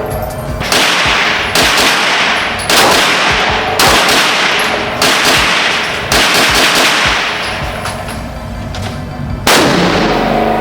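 Pistol shots at a shooting range. Six come about a second apart, then one more follows after a pause of about three seconds, each trailed by a ringing echo.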